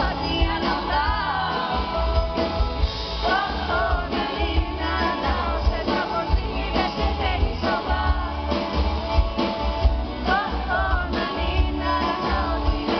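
Live band music: a woman singing a ballad over a full band, with heavy bass and drum hits.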